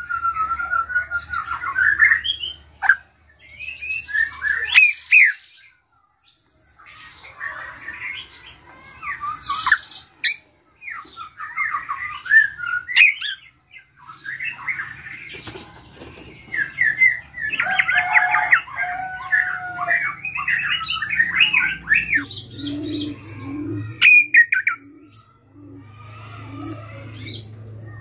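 Caged drongo singing a varied, constantly changing string of chirps, whistles and harsh squawks, the mimicked phrases of other birds that keepers call isian. There are a couple of short pauses.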